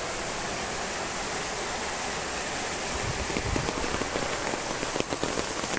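Steady rain falling on waterlogged garden beds and puddled paths, an even hiss of many drops. A few low thumps come in the second half.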